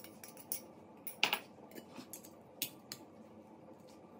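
Metal spoon scraping and tapping a small ceramic bowl, then metal tongs clicking against a glass baking dish as chicken is turned in the marinade: a string of light clicks and scrapes, the loudest a scrape about a second in.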